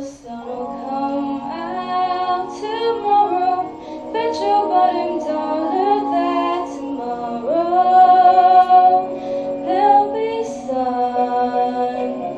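A woman singing a song over an instrumental backing of steady, held chords.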